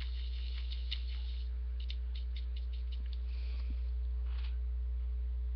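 Steady low electrical hum, with a run of faint light ticks about two seconds in and a brief soft rustle about four seconds in.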